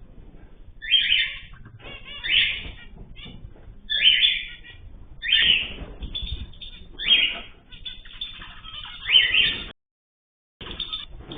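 Cage birds calling: a loud call repeats about every second and a half, six in all, with softer chirps between. The sound cuts out completely for about a second near the end.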